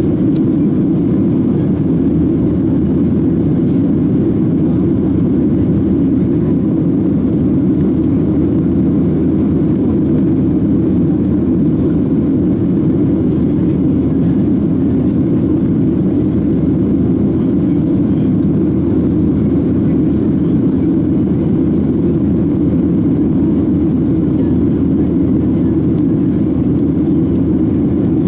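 Steady, even rumble of engine and airflow heard inside the cabin of a Boeing 737-700 in flight, its CFM56 turbofans at a constant setting.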